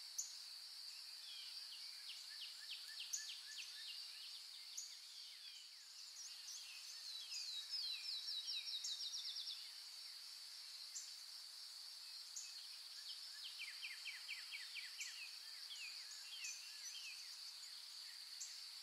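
A steady, high-pitched insect drone with songbirds calling over it: short repeated sweeping notes and two quick trills, the loudest about halfway through.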